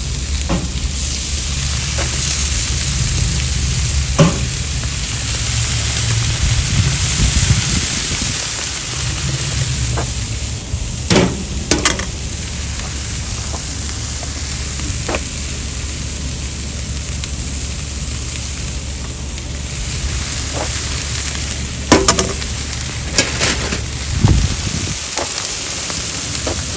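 Food sizzling steadily on a charcoal grill, with scattered sharp clicks and knocks, like tongs or a spatula against the grate, and a low thump near the end.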